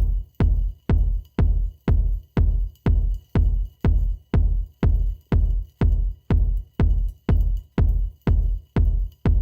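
Electronic background music with a steady, heavy bass beat, about two beats a second.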